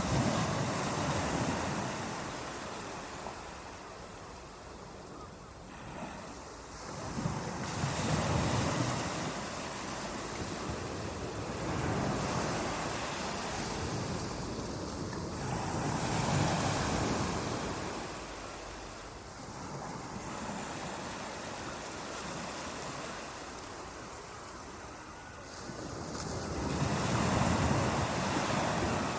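Ocean surf: waves breaking and washing up the shore, the sound swelling and falling back every several seconds.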